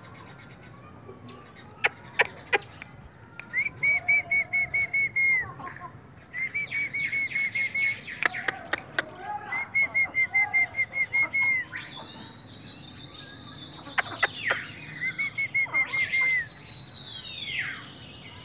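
Birds calling: several trills of quick, even notes at one pitch, each lasting about a second and a half, then longer, higher held notes that drop away at their ends. A few sharp clicks come in between.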